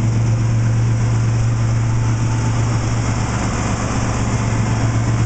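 1979 Chevrolet C10's carbureted V8 idling steadily, heard close up from the open engine bay.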